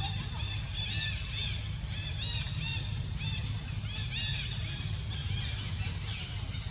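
A rapid string of short, high-pitched animal squeals or chirps, several a second, over a steady low rumble.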